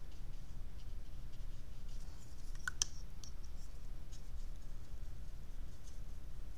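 Faint scratching of a watercolour brush working on paper and in a plastic paint palette, with a brief cluster of sharp clicks a little under three seconds in, over a steady low hum.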